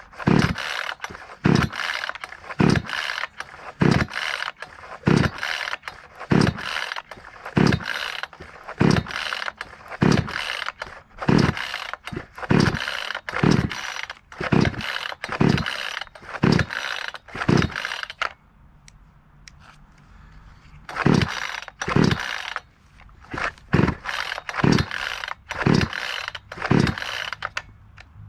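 62cc Wemars WS-6220G gas chainsaw being pull-started cold with no primer bulb: its recoil starter rope is yanked again and again, a rasping pull with a thump of engine compression about every 0.7 seconds. The pulls stop for a few seconds about two-thirds of the way in, then resume.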